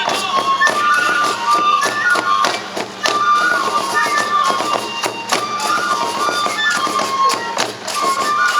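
Traditional Japanese festival music for a shishi-odori deer dance: a bamboo transverse flute plays a stepping melody over regular drum beats and sharp percussion strikes.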